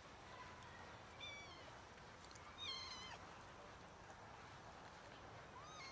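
Faint meows from a pair of domestic cats mating: a short call about a second in, a louder, slightly falling meow about three seconds in, and a brief rising-then-falling mew near the end.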